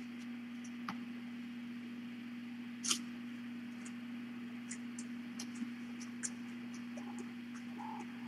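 Quiet room tone with a steady low electrical hum, broken by scattered faint clicks and one louder, brief rustling click about three seconds in.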